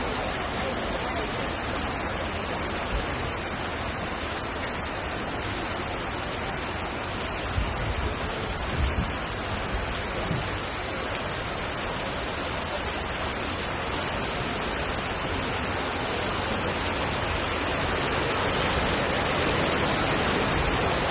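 Floodwater rushing: a steady, even roar of water, with a few louder bumps between about seven and nine seconds in.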